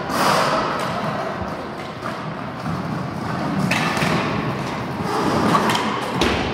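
Roller hockey play: sharp knocks of sticks and ball striking each other and the rink boards over a steady rumble of play. There is one knock right at the start, another about halfway through, and a cluster of them near the end.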